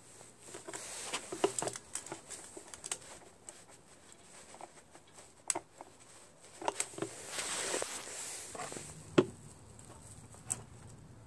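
Empty plastic bottle being handled and set in place as an oil-drain catch container: scattered clicks and taps of plastic against metal, with a longer crinkling rustle partway through.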